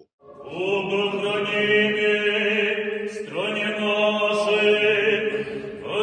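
Russian Orthodox liturgical chanting during a moleben (prayer service): voices holding long sung notes, with a new phrase starting about three seconds in.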